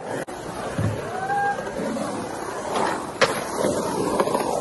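Skateboard wheels rolling on a concrete bowl, with two sharp clacks of the board on the concrete about three seconds in.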